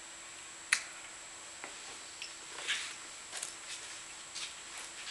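Small clicks and light scraping of a plastic multi-pin connector and a metal pin tool being handled, with one sharp click about three-quarters of a second in and fainter ticks after it. A faint steady high-pitched whine runs underneath.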